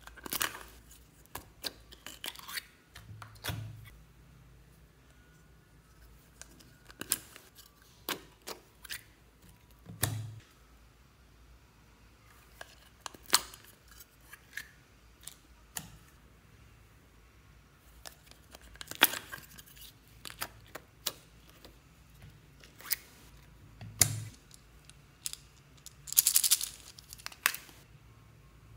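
Small plastic slime jars and lids being handled and opened by hand: scattered sharp plastic clicks and crackles, a few soft low thumps, and a longer crackling burst near the end.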